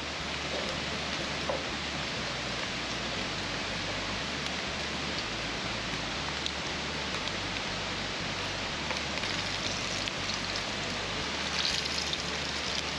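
Bratwursts sizzling steadily as they fry, with a few small pops.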